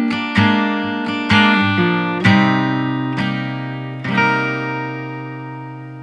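Outro music on guitar: chords struck about once a second, the last one about four seconds in left to ring out and fade away.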